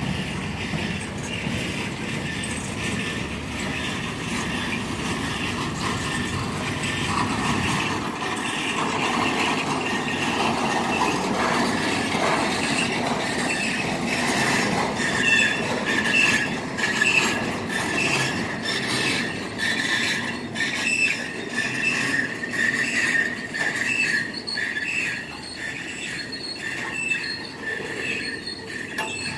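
Norfolk Southern freight train rolling slowly through a yard as it slows to stop, its wheels squealing in repeated high-pitched bursts. Many short clicks from the passing cars run under the squeal, which grows stronger about halfway through.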